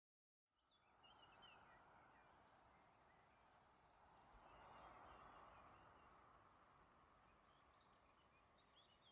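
Faint outdoor ambience: a steady rush of flowing stream water, swelling a little midway, with small birds chirping.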